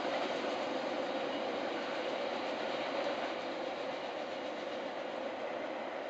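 Wagons of a long freight train rolling along the track, a steady rolling noise that slowly fades as the end of the train moves away.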